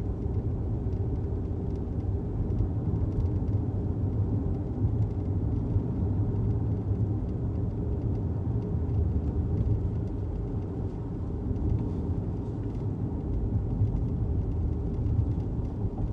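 2018 Audi Q5 on the move: a steady low rumble of road and running gear, with faint, scattered light ticks of a rattle.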